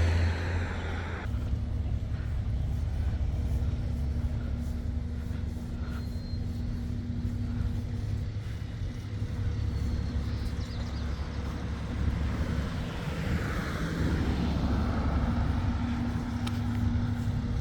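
Road traffic: a steady low rumble, with a vehicle swelling past about two-thirds of the way through.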